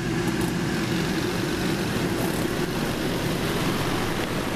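Spin-dryer motor of a small Arksen twin-tub washing machine running its spin cycle, a steady hum as the basket spins water out of the clothes.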